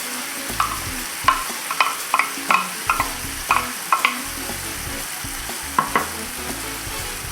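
Beef mince sizzling in a hot non-stick frying pan as a wooden spoon stirs in the celery, with a dozen or so sharp knocks of the spoon against the pan between about half a second and six seconds in.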